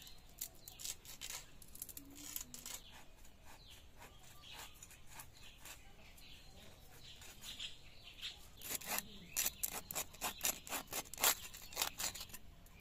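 Pieces of boal catfish being cut on a boti blade: a run of crisp cutting and scraping strokes that come faster and louder in the last few seconds.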